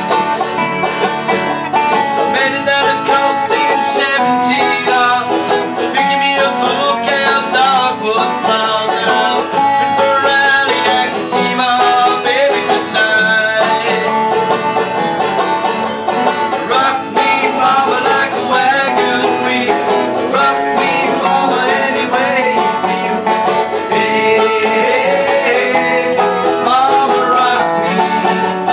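Banjo and resonator guitar playing an instrumental tune together: a continuous run of plucked notes.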